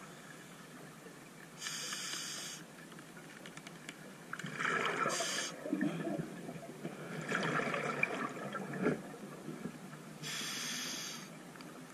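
Scuba diver breathing underwater through a regulator: a hiss of inhalation about two seconds in and again near the end, with a long burble of exhaled bubbles in between.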